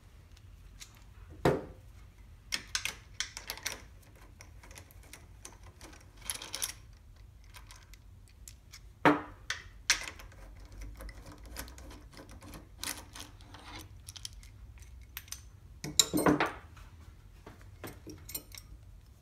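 Small metal parts clicking and clanking as bolts and the lead screw's end bracket are taken off a Logan 10-inch lathe, with a few short rattling scrapes in between. The loudest knocks come about a second and a half in, twice around nine seconds, and again near sixteen seconds.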